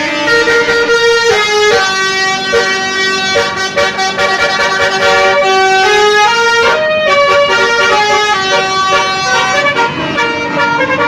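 Basuri (telolet) musical horn on a bus, playing a tune as a run of held horn notes that step from pitch to pitch, sometimes two notes sounding together.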